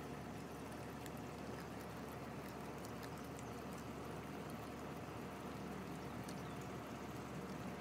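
Steady, water-like hiss of light rain, with a few faint clicks as a pitbull puppy gnaws at a piece of raw chicken.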